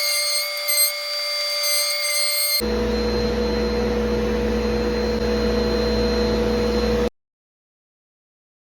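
Table-mounted wood router running at speed with a steady high whine. About two and a half seconds in the sound switches abruptly to a lower, fuller hum with a steady pitch, then cuts off about seven seconds in.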